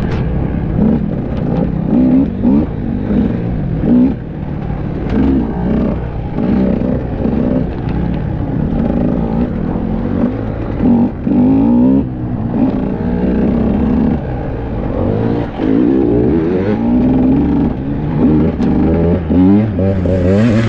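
KTM EXC enduro motorcycle engine heard from on the bike, revving up and dropping back again and again as the rider accelerates and shifts along the trail.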